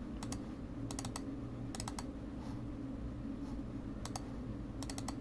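Faint clicking at a computer, short sharp clicks mostly in quick pairs or small clusters every second or so, over a steady low hum.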